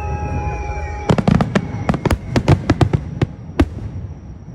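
Fireworks going off in a quick run of about a dozen sharp bangs, starting about a second in and dying away after a couple of seconds. Faint, fading steady music tones come before the bangs.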